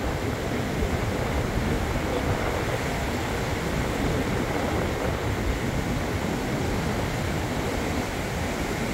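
Small surf breaking and washing in over shallow water, mixed with wind buffeting the microphone as a steady low rumble.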